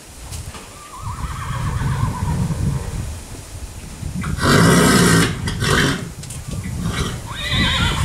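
A horse whinnying: a long wavering call falling in pitch about a second in, and another starting near the end. About halfway there is a very loud harsh blast of breath-like noise, with a shorter one just after.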